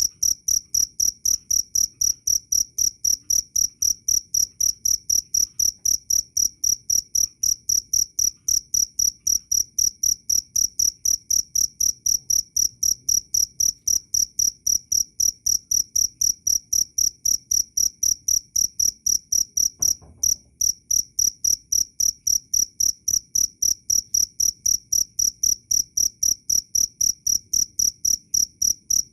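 Cricket chirping in an even rhythm of about three short, high-pitched chirps a second, with a brief break about twenty seconds in.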